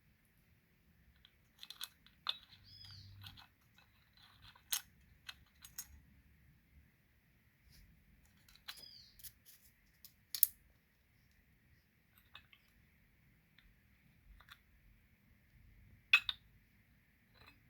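Irregular clicks, taps and knocks of small tools and metal parts being handled while an electric car horn is taken apart. The sharpest knocks come about 5, 10 and 16 seconds in.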